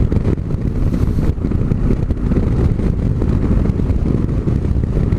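Yamaha XT 660 Z Ténéré's single-cylinder four-stroke engine running steadily while the motorcycle rides along a gravel road, mixed with the rumble of tyres on gravel and wind noise.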